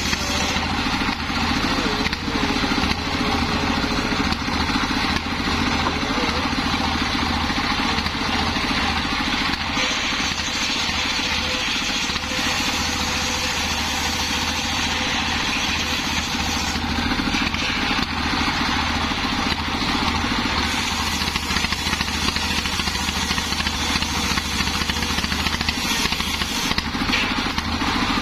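A homemade table circular saw, belt-driven by a single-cylinder stationary diesel engine, ripping teak lengthwise. The engine runs with a steady beat under the blade's cutting noise, which grows and eases as the planks are fed through.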